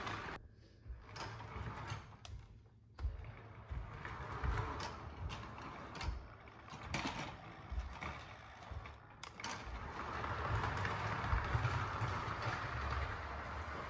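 Playmobil 4021 toy steam locomotive's motor and gears whirring as it pulls its cars along plastic track. The sound is uneven with small clicks and rattles, drops out briefly twice near the start, and is steadier near the end.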